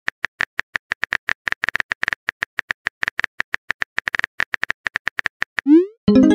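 Rapid keyboard typing clicks of a texting-story app, about nine a second, as a message is typed. Near the end a short rising bloop, the message-sent sound, and then a burst of ringing tones.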